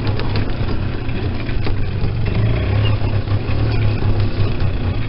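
Vehicle engine running steadily at low speed while driving over bumpy ground, with scattered light rattles and knocks.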